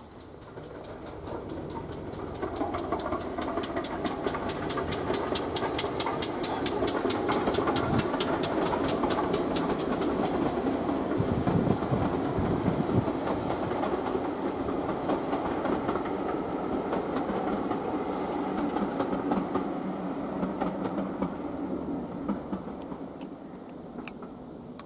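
Steam-hauled passenger train crossing a stone viaduct overhead, growing louder as it approaches and then fading away. A fast, even beat of about five a second stands out for several seconds, then the coaches roll past with a steady rumble.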